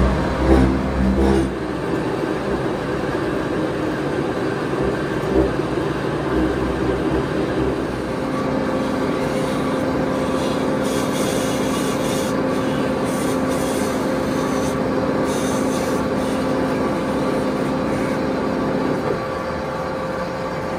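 Metal-cutting machine tool running steadily, with a few knocks in the first second or so and a held tone from about 8 to 19 seconds in.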